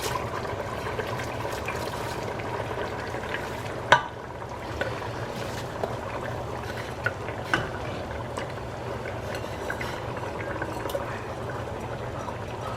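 Liquid pouring and bubbling as soaked basmati rice is drained and tipped into a pot of boiling mutton stock. A sharp knock about four seconds in, and two lighter ones a few seconds later.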